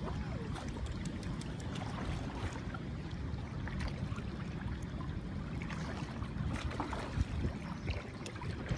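Shallow river water splashing and trickling around wading legs, with a steady low rumble underneath and scattered small sharp splashes.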